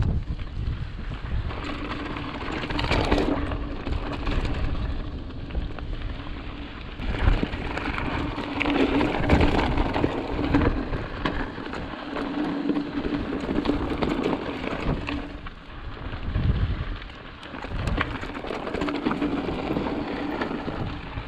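Mountain bike rolling along a dirt trail: tyres running over dirt and small rocks with many small ticks and rattles, and wind rumbling on the microphone. A low hum fades in and out about four times.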